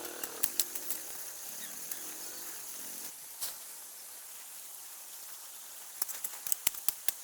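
Quiet outdoor ambience with a steady faint hiss, broken by scattered light clicks and taps, with a quick cluster of them near the end.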